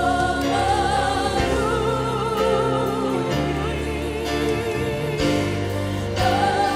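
Live praise-and-worship song: a singer holds long notes with vibrato over sustained keyboard chords, bass and drums.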